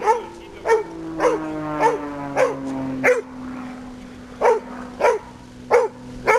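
Vizsla barking in a steady series, about one bark every 0.6 seconds, with a short pause about halfway through. This is a rescue dog's bark indication at a found person.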